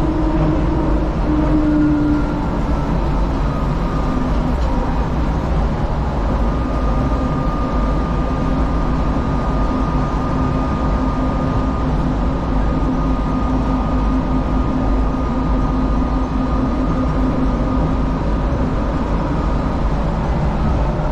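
DFW Skylink automated people mover, a rubber-tyred Bombardier Innovia APM 200 car, running along its guideway, heard from inside the car. A steady low rumble carries a steady whine on top that shifts slightly in pitch near the start and again near the end.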